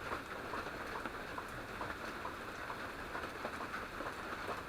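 Steady rain falling, a soft even hiss with scattered drops ticking irregularly.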